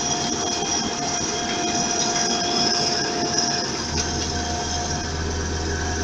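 Wheeled asphalt paver running at close range: steady diesel engine noise with a constant high whine from the machine. A deeper steady hum joins about four seconds in.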